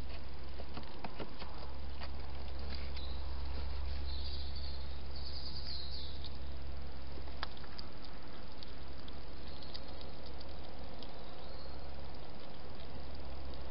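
Night garden ambience picked up by an outdoor camera: a steady low hum under a faint hiss, with scattered light clicks in the first few seconds and a brief high chirr about four to six seconds in.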